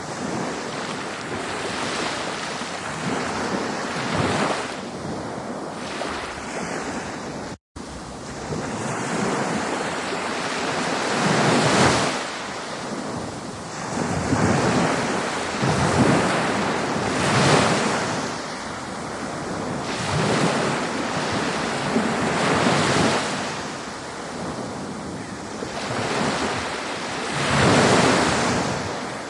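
Ocean waves washing in on the shore: a continuous surf hiss that swells and falls every few seconds as each wave breaks. The sound cuts out for an instant about a quarter of the way in.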